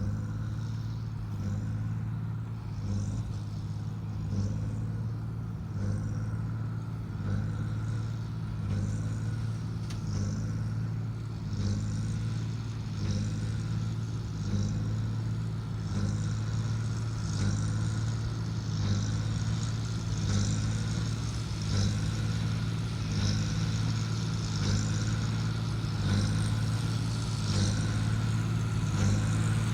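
Tractor engine running steadily while pulling a working hay baler, with a regular mechanical knock about every second and a half from the baling machinery.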